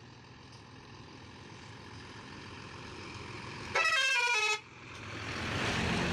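Passenger coach bus approaching, its engine growing steadily louder. About four seconds in it sounds a short horn blast of several quick stepping notes. Then it passes close by, and engine and tyre noise swell up.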